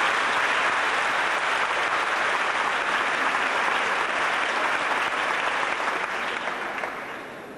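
Audience applauding steadily, fading away from about six seconds in and dying off near the end.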